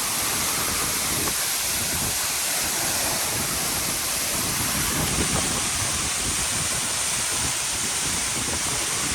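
Waterfall's steady rushing roar of falling water, an even hiss that does not let up.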